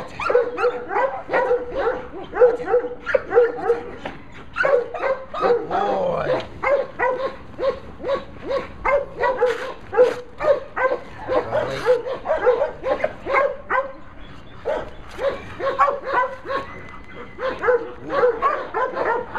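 American Pit Bull Terrier puppy yipping and whining over and over, about two short high-pitched calls a second, as it bites and tugs a leg bite sleeve.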